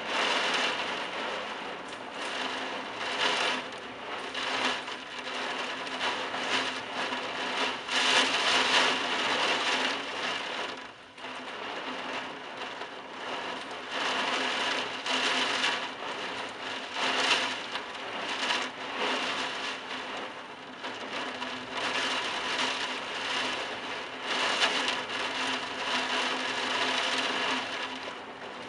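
Heavy wind-driven rain in a thunderstorm, a dense rushing hiss that swells and eases with the gusts, dropping briefly about a third of the way in.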